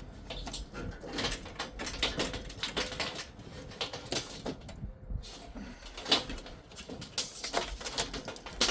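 Irregular clicks, knocks and rattles of dishwasher parts being handled and worked loose by hand.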